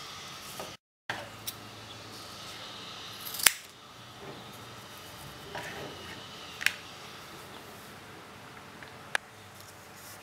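Scissors snipping through strips of decorative tape: a handful of separate sharp cuts, the loudest about a third of the way in.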